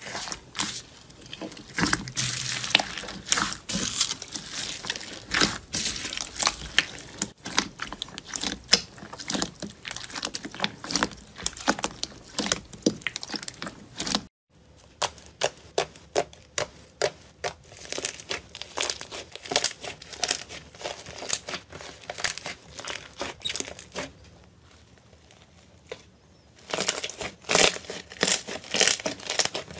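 Slime being pressed, poked and squeezed by hand, giving dense crackling and popping clicks. The first stretch is a hand pushing into slime topped with tiny silver beads; after a clean break comes glittery slime being poked, then a quieter stretch, then loud crackling as pink slime is squeezed near the end.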